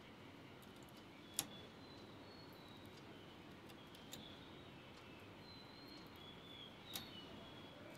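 Near-silent room with two sharp clicks, about a second in and near the end, and a softer one midway: the metal transfer tool and needles of a domestic knitting machine clicking as stitches are moved onto the needle bed.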